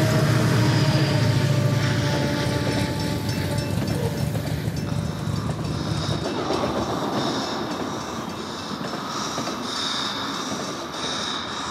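Freight train rolling past a level crossing: a deep rumble for the first half, then a lighter, higher clatter of the passing wagons.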